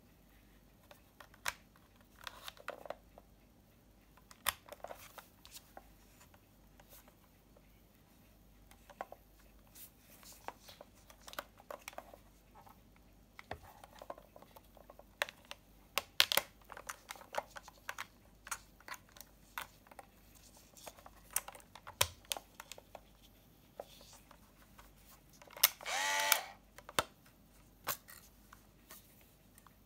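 Scattered small clicks and taps of a Premier Focus Free PC-640 compact 35mm film camera being handled: plastic body, switches and the film back door, which is opened near the end. Late on, a mechanical whir from the camera lasts a little over a second.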